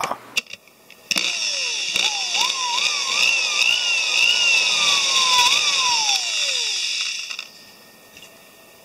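Small electric drill with a fine bit drilling holes in thin brass sheet. The motor whine starts about a second in, rises and dips in steps as the bit meets the metal, then falls away as the drill slows and stops near the end.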